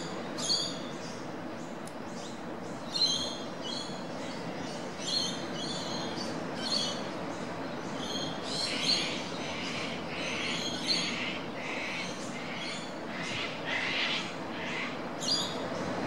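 Oystercatcher giving a long series of short, high piping calls, roughly one or two a second, with harsher, lower calls crowding together in the second half. Surf washes steadily underneath.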